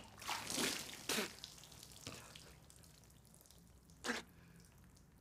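Wet splashing and spluttering as poured beer runs off a drenched man's face and he blows it away. There are two bursts in the first second or so and one short, sharp one about four seconds in.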